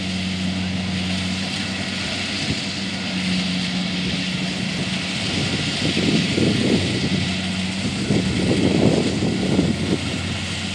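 Kubota DC70 Plus combine harvester's diesel engine running steadily at a distance, a low hum with a hiss above it, as the machine labours in soft, boggy paddy mud. Some uneven rumbling joins in between about six and ten seconds in.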